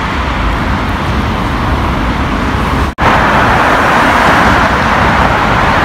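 Street traffic noise: a steady hiss of cars on the road. It cuts out for an instant about three seconds in and comes back louder.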